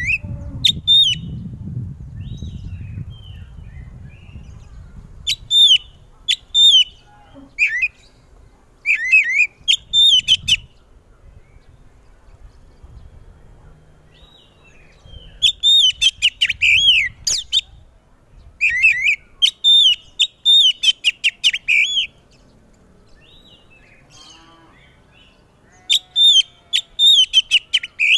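Oriental magpie-robin (kacer) singing loudly in bursts of a few seconds: rapid phrases of sharp whistled notes, with short pauses between bursts.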